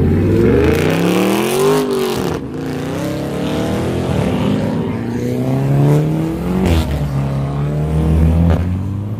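Car engines revving: the pitch climbs over the first two seconds and drops sharply, then rises and falls several more times.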